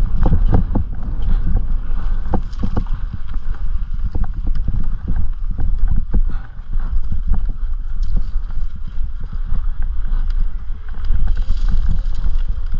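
Specialized Turbo Levo e-mountain bike rattling over rough trail, with many irregular knocks and clatters over a steady low rumble.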